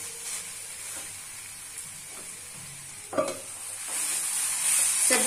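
Perforated metal spatula stirring and scraping potatoes and green beans in masala in a metal kadai, over a faint sizzle. A sharp knock about three seconds in, and the sizzle grows louder near the end.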